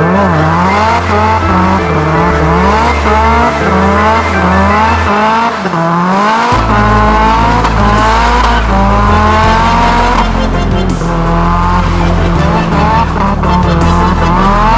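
Nissan SR20DET turbocharged four-cylinder engine revving up and dropping back again and again, with tyre squeal, mixed with an electronic music track with steady bass notes.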